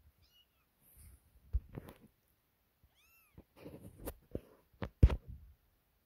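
Kitten mewing: a faint high mew near the start and one clear rising-and-falling mew about three seconds in. Around the mews come scuffling and knocks, the loudest a sharp knock about five seconds in.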